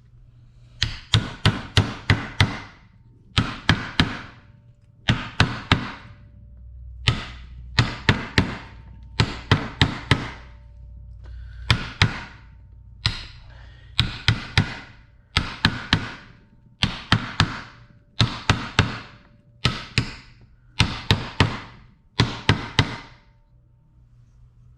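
Hammer blows in quick bursts of four to six strikes, a burst about every one and a half seconds, during crank bearing work on a Yamaha YZ250F engine.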